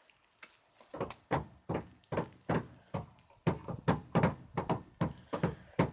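Footsteps in snow: a quick run of soft thuds, about three a second, starting about a second in.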